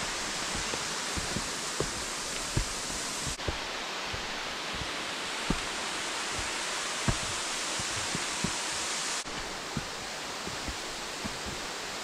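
Steady rushing hiss of flowing water, with irregular low thumps scattered through it. The hiss changes level abruptly twice.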